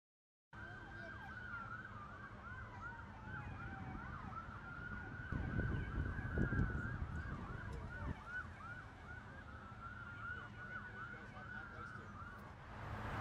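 Several emergency vehicle sirens sounding at once, one in a fast yelp and another in a slow rising-and-falling wail, over a low rumble. Near the end a broad rushing noise comes up.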